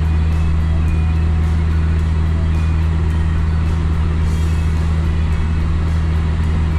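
Steady low drone of a car driving, with music playing over it that has a light beat of about three ticks a second.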